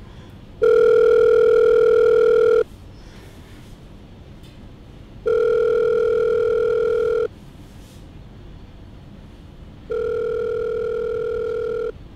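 Telephone ringback tone of an outgoing call ringing: three long, steady beeps of about two seconds each, repeating every four to five seconds, each a little quieter than the one before.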